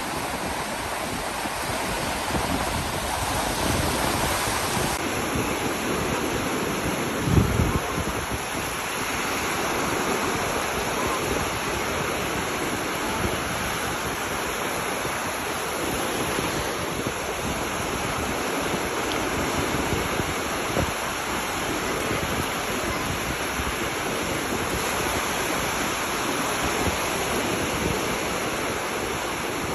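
Ocean surf breaking and washing up a beach: a continuous rush of waves that swells and eases. A brief low thump about seven seconds in.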